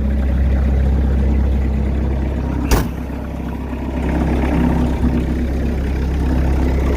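Skid steer's diesel engine idling steadily, freshly started in the cold after its fuel had gelled. A single sharp click about three seconds in, after which the engine runs slightly quieter for about a second.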